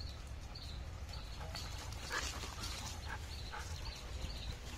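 German shepherd puppies play-fighting, giving a flurry of short high yips and whines that comes in about a second and a half in and runs for a couple of seconds.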